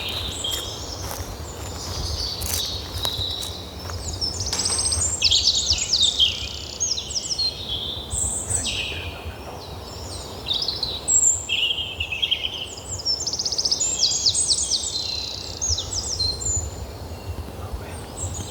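Several songbirds singing and calling, with repeated chirps and quick trills, over a steady low rumble. A few faint clicks or knocks come in the first few seconds, which the uploader flags as loud knocks and noise on the recording.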